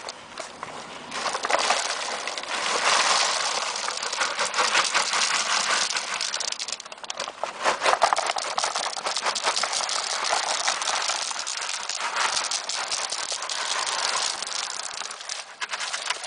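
River stones poured from a plastic bucket onto a pile around a plastic roof-drain strainer: a dense, continuous clatter of pebbles tumbling against each other, coming in surges, loudest about eight seconds in.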